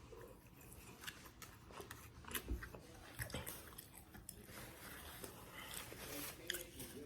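A person biting and chewing crusty Little Caesars bread, with scattered crunches that are loudest a little over two seconds in and again around three seconds.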